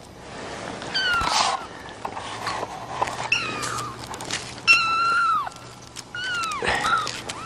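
Kittens about three weeks old mewing: about six high, thin mews whose pitch drops at the end. The longest and loudest comes about halfway through.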